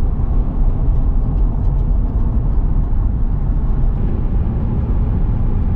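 Steady low rumble of road and engine noise inside a car's cabin at highway speed.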